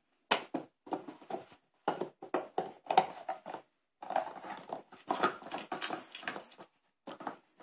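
Plastic lids and drawers of a Trixie Poker Box dog puzzle toy clacking, knocking and sliding as a Labrador puppy noses and paws at them for treats. A quick series of sharp clacks comes first, then about four seconds in a denser stretch of rattling and scraping.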